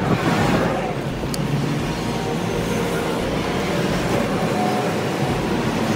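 Steady roadside traffic noise, a continuous rumble of passing vehicles.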